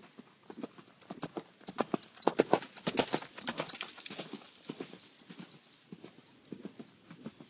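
Hoofbeats of a Gypsy–Clydesdale cross gelding under saddle: a quick, even run of footfalls, several a second, loudest about two to four seconds in and then softer.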